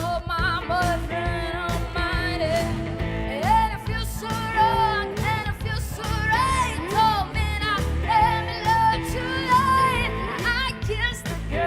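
A woman singing a slow melody with instrumental accompaniment.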